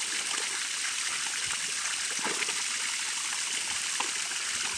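Water from a hose jet splashing steadily onto wet ground and wild boars.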